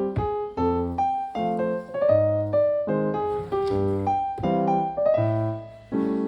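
Background music: light piano, with melody notes and chords in a steady rhythm over a bass line.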